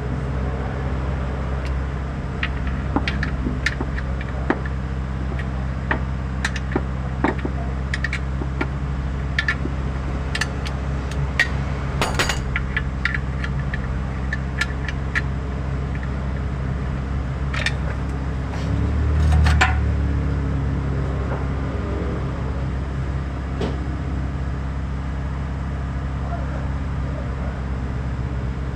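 An engine running steadily, with scattered sharp metallic clicks and clinks over it and a brief louder swell about nineteen seconds in.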